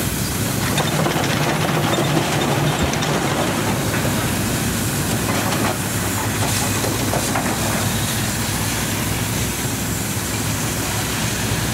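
Marion Osgood steam shovel working as its dipper digs into a dirt pile: steady steam hiss from the engine, with a clatter of gears and chains and a low steady hum underneath.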